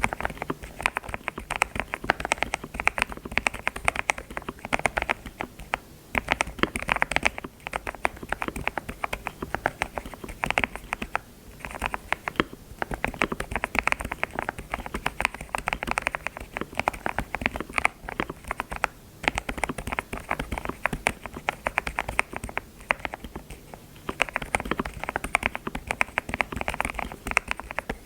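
Computer keyboard keys clicking in fast, continuous typing, with a few brief pauses.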